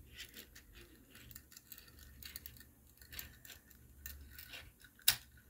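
Plastic toy train rolled along a wooden tabletop, its plastic wheels clicking and rattling unevenly, with one sharper click about five seconds in.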